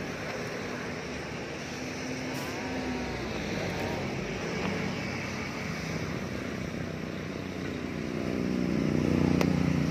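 Motor vehicle engine running steadily on the road, growing louder over the last two seconds as it comes closer, with a single sharp click near the end.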